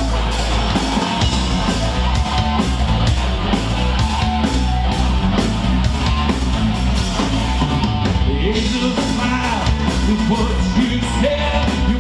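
Loud rock music from a band: electric guitar, a steady drum beat and a singing voice.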